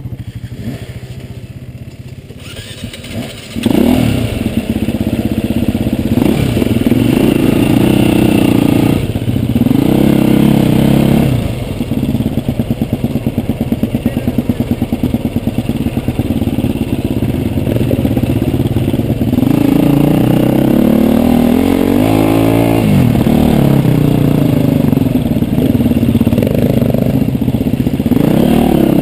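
Enduro dirt bike engine close by, quieter at first, then loud from about four seconds in as the bike is ridden off. The revs rise and fall with the throttle, with quick up-and-down revving in the second half.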